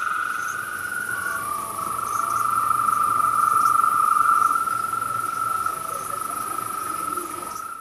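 Night chorus of crickets and other insects: a loud continuous trill, with one voice giving way to a slightly lower one about a second and a half in, over a steady very high insect buzz.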